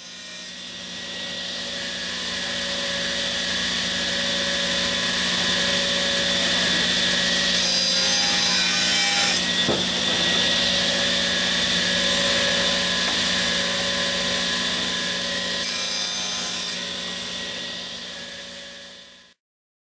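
Accu-Systems 2S CNC panel saw's circular blade running and cutting an edge-glued wooden panel: a steady machine hum and high whine with sawing hiss. It swells in over the first couple of seconds, eases off near the end and cuts off abruptly.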